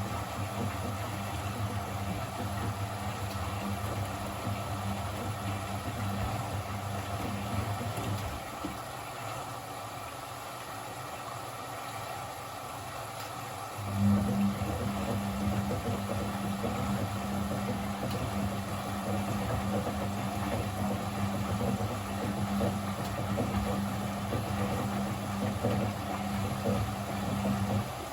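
Blomberg 240W washing machine in its wash cycle: the drum motor hums steadily, stops about eight seconds in, and starts again with a jolt about six seconds later, the pause typical of the drum reversing direction. A steady swishing runs underneath throughout.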